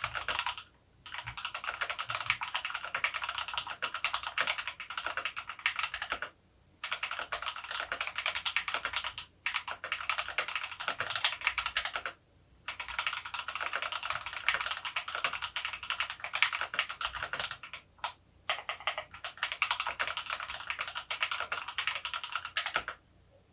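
Fast, continuous typing on a GMMK Pro mechanical keyboard with lubed Creamsicle linear switches, PBT keycaps and a polycarbonate plate: dense runs of keystroke clicks broken by a few short pauses, stopping shortly before the end.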